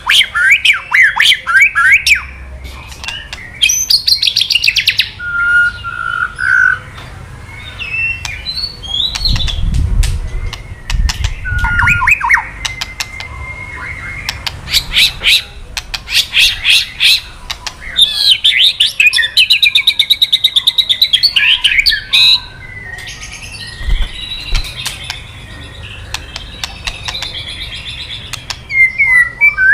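White-rumped shama singing: several bursts of rapid harsh rattling clicks, the 'kretekan' call used to rouse male shamas into song, alternating with clear whistled notes and high trills.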